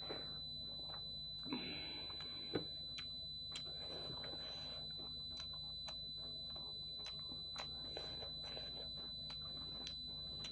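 A person eating soft dhido by hand: small mouth clicks and chewing noises and fingers working the food, with a sharper click about two and a half seconds in. A steady high-pitched electronic whine runs under it all.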